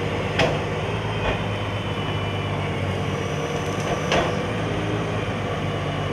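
A heavy engine running steadily at idle, with three sharp knocks about half a second, one and a half and four seconds in.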